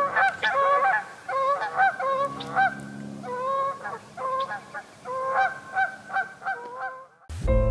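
Several Canada geese honking, calls coming in quick succession and overlapping one another; the honking stops abruptly near the end.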